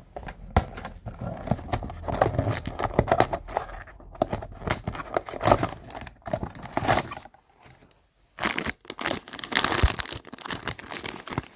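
Blind-box packaging being opened by hand: a plastic wrapper crinkling and tearing, with a short pause about two-thirds of the way through before the crinkling resumes.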